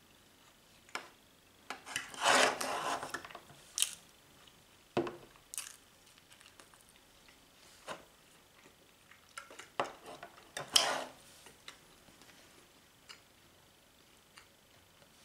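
Cutlery scraping and clicking against a metal ham tin while eating: two longer scrapes, about two and ten seconds in, with single clicks scattered between.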